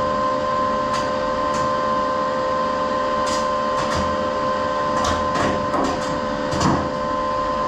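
Steady electrical hum from welding equipment, two constant tones over a hiss, broken by a series of short sharp clicks and knocks from work on the steel plates, the loudest near the end.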